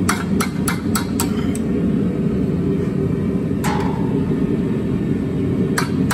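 Light hand-hammer taps on hot steel at the anvil, rolling a scroll: a quick run of about six taps in the first second and a half, a single blow with a brief ring about two thirds of the way through, and more taps near the end. A steady low rumble runs underneath.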